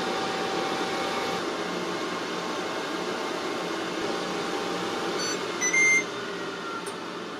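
Ninja Foodi XL Pro air fry oven's convection fan running steadily, then the oven beeping about five and a half seconds in as the cooking timer runs out. After the beeps the fan noise drops.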